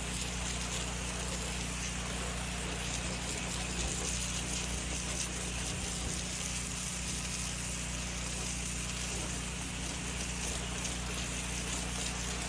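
Gas-engine pressure washer running steadily, with the hiss of its water spray.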